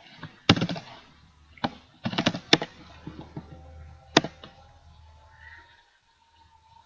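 Computer keyboard and mouse clicks: a single keystroke about half a second in, another near 1.7 s, a quick cluster of clicks about two seconds in, and one last sharp click a little after four seconds.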